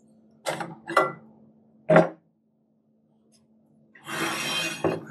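Metal parts of a small end-suction centrifugal pump being handled: light knocks, a sharp clunk about two seconds in, then a grating scrape of about a second near the end.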